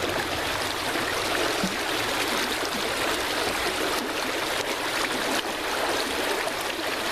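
Creek water flowing steadily: a constant rushing hiss with no breaks. The creek is running high.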